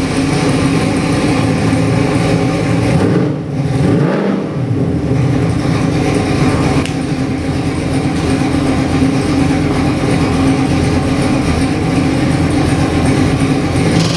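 Ford 408 Windsor stroker V8 with a hydraulic roller cam and Holley carburettor idling steadily on an engine dyno at about 650 rpm.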